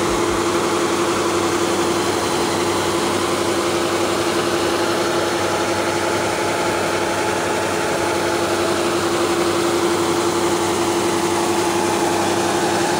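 A diesel farm engine running steadily at a constant speed, an even drone with one strong steady tone and no change in pitch.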